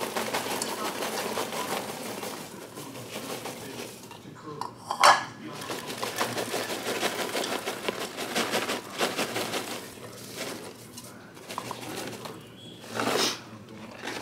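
Popped popcorn poured from a paper microwave popcorn bag into bowls: a dense patter of kernels landing and rattling, with the bag crinkling as it is shaken. A sharper knock about five seconds in and a louder rustle near the end.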